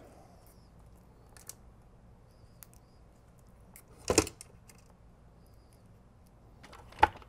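Small clicks of metal hardware and a screwdriver being worked inside a sheet-metal computer chassis at the fan mount. There is a louder short clatter about four seconds in and a sharp click near the end.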